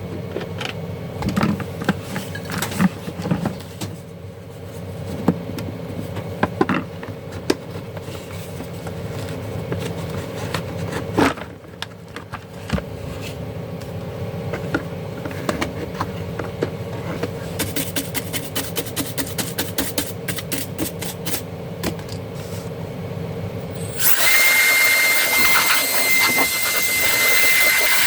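Scattered clicks and knocks of hands and tools working on a garment steamer's casing, over a steady low hum. Near the end a loud, steady rushing machine noise with a thin high whistle starts suddenly.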